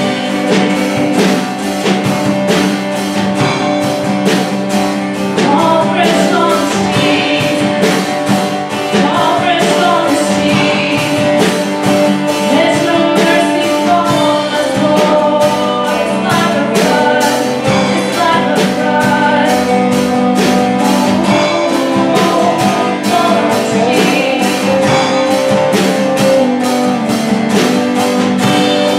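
A woman singing a worship song into a microphone, with an acoustic guitar strummed in a steady rhythm behind her.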